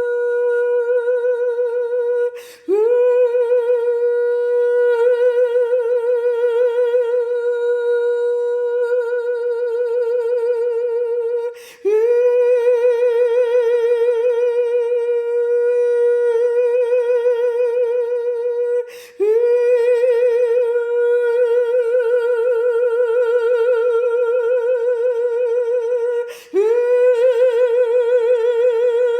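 A woman's voice humming one long, high note with a wavering vibrato. It stops briefly for breath four times, and each new note slides up into the same pitch.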